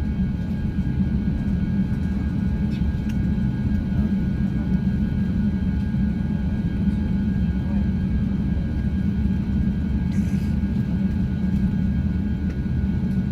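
Steady low cabin rumble of an Airbus A350-900 at low engine power during taxi, with faint steady whine tones above it. A brief soft hiss comes about ten seconds in.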